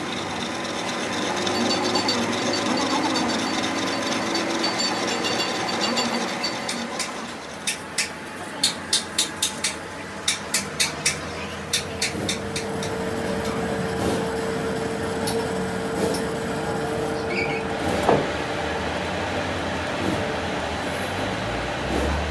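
Workshop tool noise on metal axle parts. A steady mechanical running sound gives way to a quick run of about a dozen sharp knocks, about three a second. Then comes a steady hum and one last knock.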